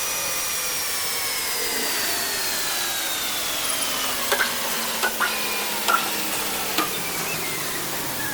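A lathe cutting metal: a steady hiss with several tones that slowly fall in pitch, and a few sharp clicks in the second half.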